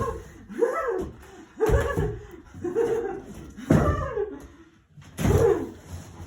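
A person's voice laughing and making excited, wordless exclamations: about five separate outbursts with swooping pitch.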